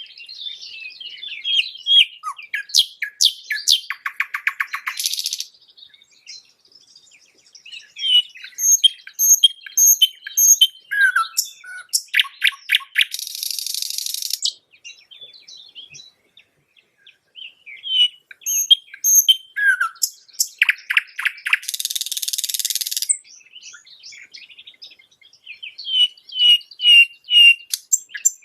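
Nightingale singing in phrases of several seconds with short pauses between them, each phrase mixing rapid trills, repeated high whistled notes and harsh buzzing rattles.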